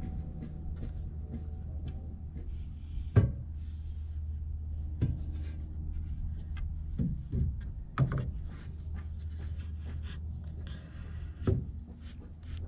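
Carpentry work on wooden trim: about six sharp wooden knocks and clunks spread through, the loudest about three seconds in, over a steady low hum.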